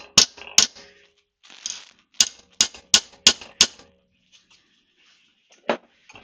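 Sharp metallic clicks from a tool at work on a bent bicycle derailleur hanger as it is straightened. They come in two runs, about three a second, with a single duller knock near the end.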